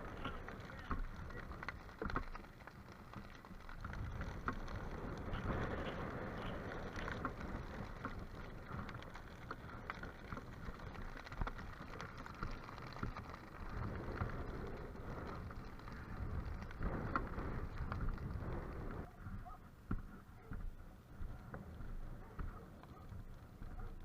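Strong wind rumbling and buffeting over the microphone, with a dense crackling of dry grass burning in a fast-spreading grass fire. The crackling thins out about three-quarters of the way through.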